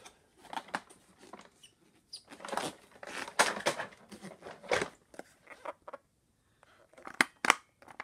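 Handling noise during unpacking: irregular rustling, crinkling and scraping of packaging, with two sharp clicks close together near the end.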